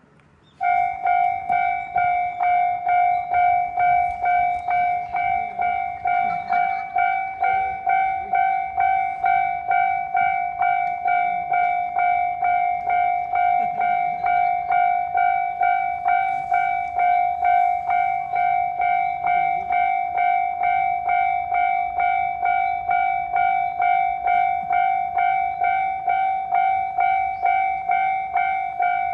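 Japanese railroad crossing warning alarm starting up about half a second in and ringing in a fast, even kan-kan, about two to three strikes a second, warning that a train is approaching.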